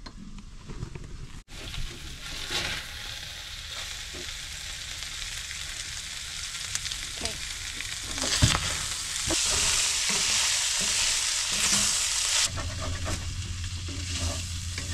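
Breakfast sausage, diced potatoes and red peppers sizzling in a cast-iron skillet on a gas stove, stirred and scraped with a wooden spatula. The sizzle grows louder about halfway through, with a single knock, and a low steady hum joins near the end.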